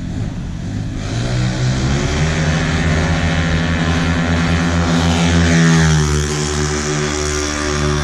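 Yamaha Mio single-cylinder scooter engines at full throttle down the drag strip, with their pitch falling about two-thirds of the way in, over electronic music with a pulsing bass beat.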